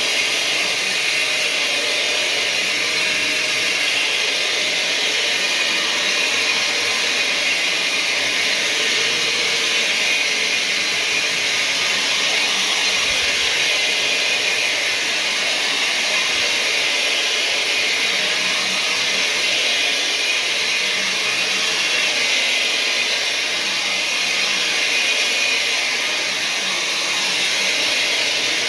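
Counter-rotating brush (CRB) carpet machine running steadily as it is pushed over pre-sprayed carpet, its motor and brushes giving a constant whirring hiss while agitating the pile.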